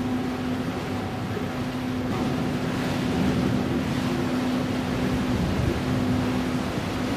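Steady drone of a river cruise ship's engines, a low hum held at one pitch over a broad rushing noise.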